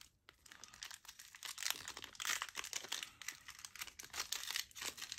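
Foil wrapper of a Yu-Gi-Oh booster pack crinkling as it is handled and opened: a fast, uneven run of faint crackles.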